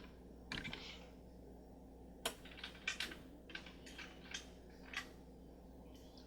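Light, sharp clicks and taps of a die-cast toy model car being handled, about half a dozen scattered through a few seconds over a faint steady hum.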